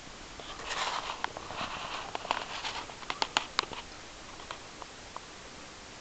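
Footsteps crunching through dry grass and leaves, with several sharp cracks in the middle, then a few faint ticks, over a steady hiss.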